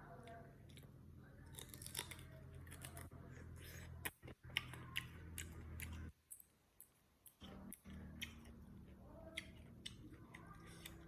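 Close-miked eating: crisp, sharp crunching and chewing clicks of food being bitten and chewed, over a low steady hum.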